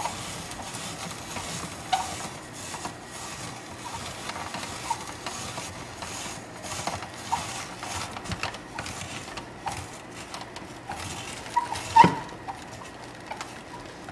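Hand-cranked plastic spiralizer cutting a zucchini into noodles: a steady crisp crunching with many small clicks, and one sharper knock about twelve seconds in.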